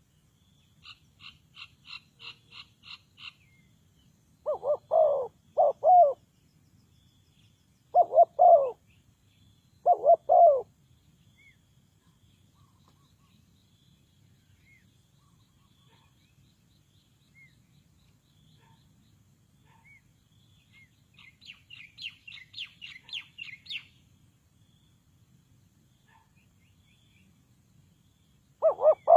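Spotted dove cooing: deep, loud call phrases of two or three coos each, three of them in the first half and another starting near the end. Twice, about a second in and again past the middle, a higher, quicker series of chirps from another bird.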